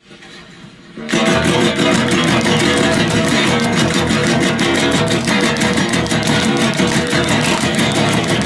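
Instrumental intro of a guitar-band song: a quieter opening second, then electric guitars and bass come in loud about a second in over a fast, steady beat.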